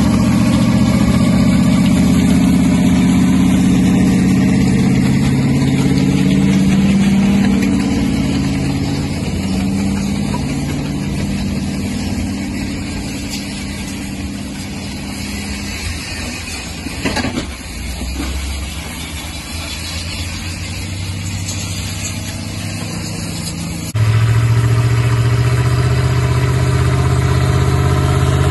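Linn half-track tractor's engine running while hauling a freighting caboose on sleigh runners. The drone grows fainter through the middle, with a brief clatter about 17 seconds in. Near the end it comes back abruptly loud and lower-pitched as the tractor heads toward the listener.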